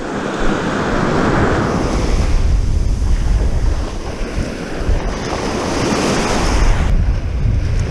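Gulf surf breaking and washing in right at the microphone, a loud rushing hiss that swells as each wave comes in, with wind buffeting the mic as a low rumble.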